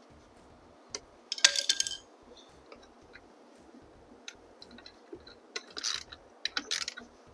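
Hand tools and metal hardware clinking and clicking while the kickstand's bolt and nut are tightened: a ringing metallic clatter about a second and a half in, then scattered lighter clicks.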